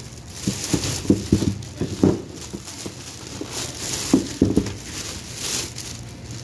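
Plastic shopping bags and packaged goods being handled, crinkling and rustling with irregular light knocks.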